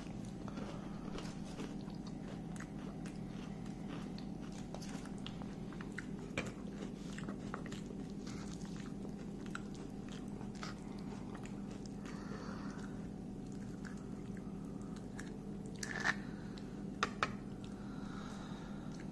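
A person chewing and crunching crisp fuchka (pani puri shells and filling), with small clicks throughout and a few sharper clicks near the end, over a steady low hum.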